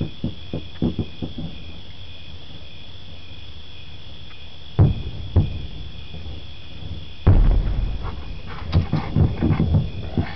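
Aerial fireworks shells bursting at a distance: a few soft thuds at first, two louder booms about halfway, then a bigger boom followed by a rapid string of crackling pops. Crickets chirp steadily underneath.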